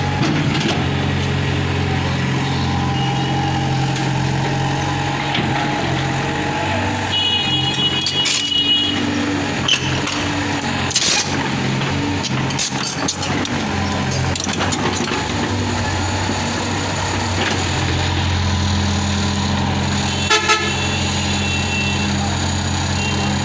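Excavator's diesel engine running steadily close by as its bucket digs up broken road surface, with a few sharp knocks. A vehicle horn honks for about a second and a half about seven seconds in, and briefly again near the end.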